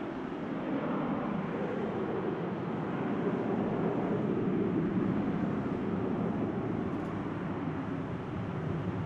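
Jet aircraft engines running at an airport: a steady rushing roar that swells toward the middle and eases off again.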